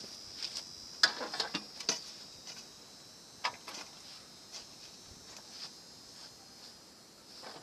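Scattered small clicks and taps of tools and metal parts as a microwave oven is taken apart, with a quick run of clicks about a second in and a single sharper one a little later, over a steady high hiss.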